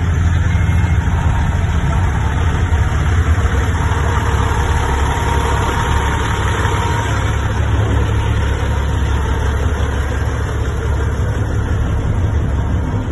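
Diesel semi-truck engine idling, a steady low rumble.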